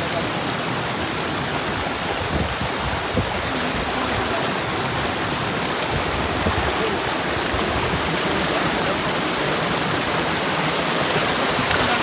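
Flowing water from a mountain stream or waterfall, rushing steadily.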